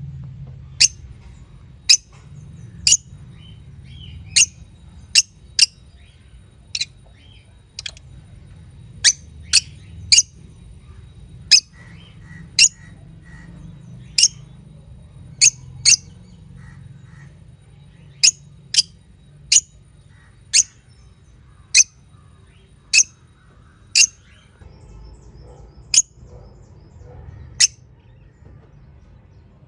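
Pet lovebirds giving short, sharp high chirps, single calls about once a second at irregular intervals, over a faint low steady hum.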